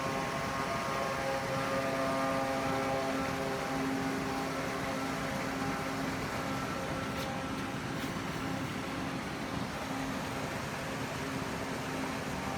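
Homemade RC boat's motor and propeller running with a steady whine over a broad hiss, the higher part of the whine weakening after a few seconds.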